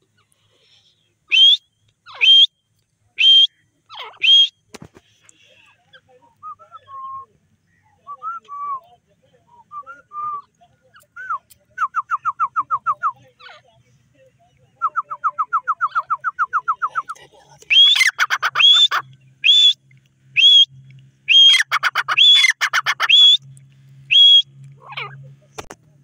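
Alexandrine parakeets and a caged grey francolin calling. First come four loud, sharp high calls about a second apart, then soft warbling, then two bursts of fast, even chatter at about nine notes a second. Near the end comes a run of loud high calls.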